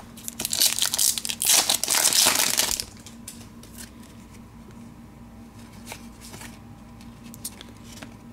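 Trading card pack wrapper torn open and crinkled for about two seconds, then a few light clicks of cards being handled.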